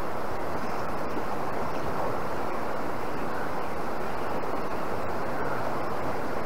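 Steady rushing of a river's current, an even hiss of moving water with no distinct events.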